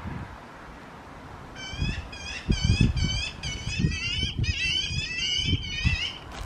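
Young magpies giving begging calls: after a quiet first second and a half, a fast run of short repeated calls, about three or four a second. From about four seconds in the calls come thicker and overlap, as one fledgling gapes and flutters its wings at the other.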